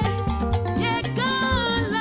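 Upbeat music: a melodic line of held, gliding notes over a bass line and steady percussion.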